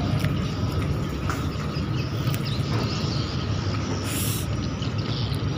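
Steady low rumble and hum of a passenger ship's engines, heard on the open deck as the ship pulls out from the berth. A brief hiss comes about four seconds in.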